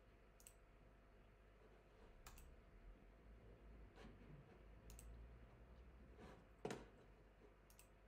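Near silence broken by about six faint, scattered computer mouse clicks, the loudest a little before the end, over a low steady hum.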